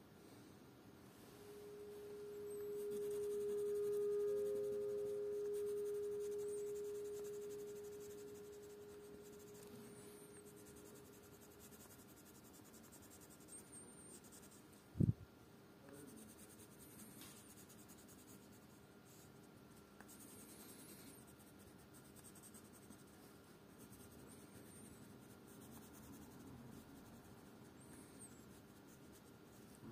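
Colored pencil scratching on paper as it shades in short strokes. A clear steady tone of unknown source swells in about two seconds in and fades away by about twelve seconds. A single sharp click about fifteen seconds in is the loudest sound.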